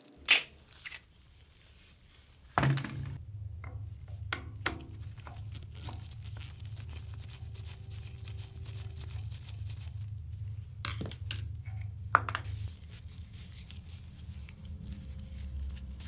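Small metal shower-valve parts being handled and cleaned: a sharp metallic clink just after the start, then light scraping and clicking as the stem and packing nut are scrubbed and wiped, with two more clinks late on. A steady low hum runs underneath from about two and a half seconds in.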